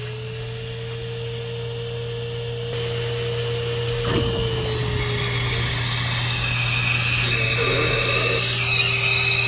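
Wet/dry vacuum motor running steadily, sucking standing condensate water out of a full air-conditioner drain pan. Its pitch dips slightly about four to five seconds in, with a brief knock just before.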